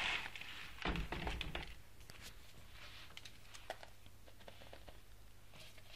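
A soft thump about a second in, then faint, scattered clicks and taps of small objects being handled.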